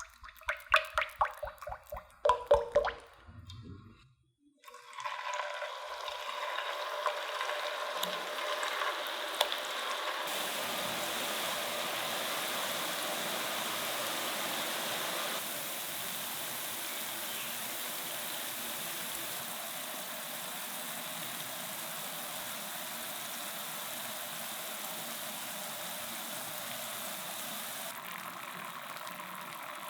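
A quick run of light taps and clicks, then, about four and a half seconds in, a steady sizzle of potato rings deep-frying in hot oil.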